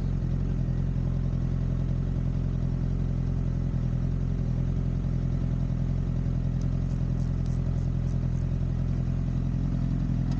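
Motorcycle engine idling steadily at a constant pitch.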